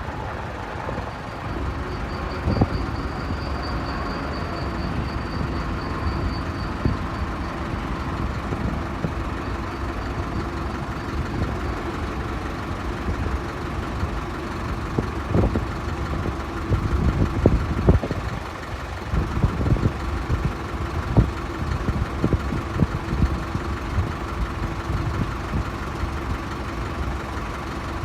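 Airbus A380 jet engines running steadily at low power, a constant rumble with a thin high whine on top. Wind buffets the microphone in irregular low thumps.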